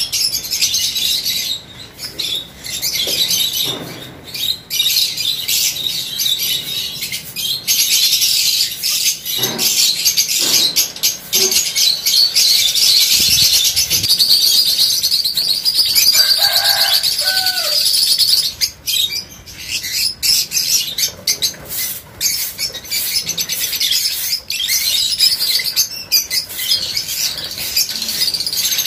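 A flock of caged lovebirds, mostly peach-faced, chattering nonstop in shrill, overlapping chirps, with some wing flaps as birds move between perches.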